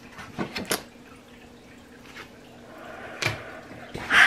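A person's mouth clicks and small handling noises over a faint steady hum, then near the end a sudden loud, breathy gasp.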